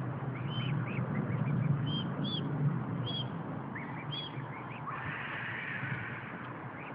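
Mute swan cygnets peeping: a scattered series of short, high chirps, a few clearer and louder ones among fainter ones, over a steady low background rumble.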